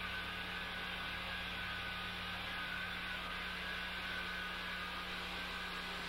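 Asphalt roller's diesel engine running, a steady low mechanical hum that stays even, with no change in pitch or loudness.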